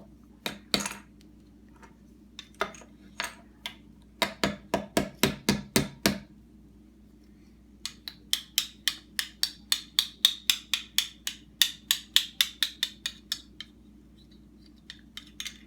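Hard plastic toy tools clicking and tapping: a few single clicks, then quick runs of about four to five sharp clicks a second, twice.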